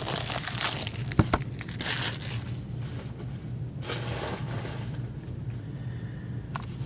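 Cardboard and wrapper packaging of a hockey trading card box being torn and crumpled open by hand, with a couple of sharp clicks about a second in and quieter rustling in the second half.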